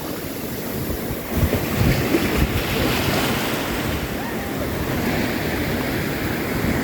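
Surf washing onto a beach, with gusty wind buffeting the microphone.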